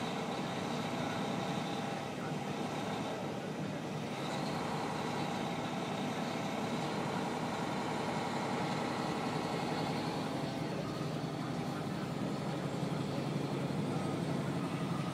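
Steady drone of a semi truck's diesel engine and road noise heard inside the cab while driving at highway speed.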